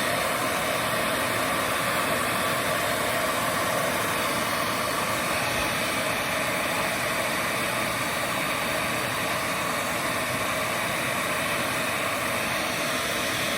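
Hand-held hair dryer (blow dryer) running steadily at one speed, blowing on the wig's lace to melt it down.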